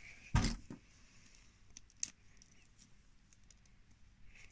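Faint handling of a small plastic toy doll and its shoes: a short knock about half a second in and a sharp click just after two seconds, with a few light ticks between.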